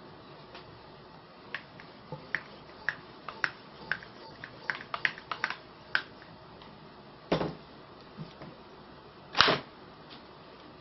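Homemade PVC airgun being handled and pumped: a run of quick plastic clicks and taps, then two louder knocks, about two seconds apart, the second the loudest.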